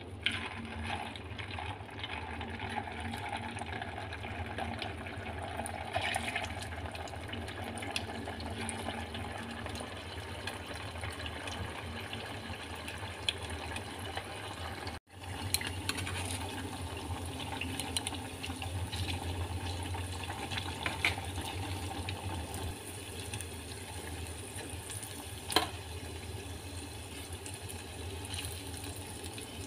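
Shrimp keropok lekor dough sticks deep-frying in hot oil: a steady sizzle with scattered crackles over a low hum. The sound cuts out for an instant halfway through, and there is one sharp click near the end.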